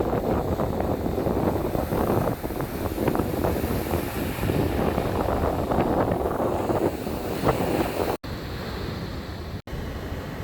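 Sea surf breaking and washing on a sandy beach, with wind buffeting the microphone. About eight seconds in, the sound cuts out abruptly twice in quick succession, and the noise is quieter after that.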